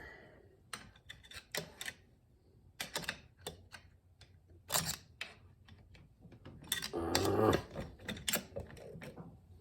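Screwdriver tip clicking and scraping on a steel snap ring in a 700R4 transmission's 3-4 clutch drum as the ring is worked out of its groove, with a longer stretch of scraping about seven seconds in.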